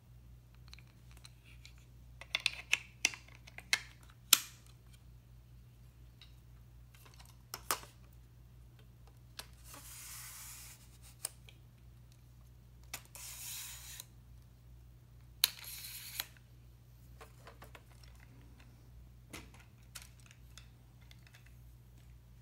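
Plastic and metal parts of a video tripod being handled: scattered clicks and knocks, with a dense flurry a few seconds in, and two brief rustling hisses near the middle.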